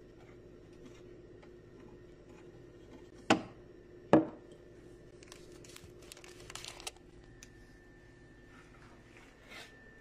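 A ceramic coffee cup being handled: two sharp knocks about three and four seconds in, then a rustling clatter, and a softer knock near the end, over a faint steady hum.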